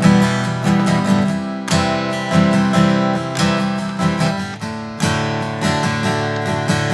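Acoustic guitar strummed in a steady rhythm of chords, with no singing over it.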